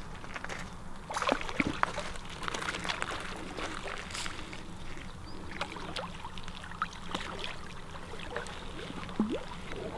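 A hooked common carp splashing and thrashing at the surface in the shallow margin as it is played in and drawn over the landing net, a run of irregular water splashes and slaps.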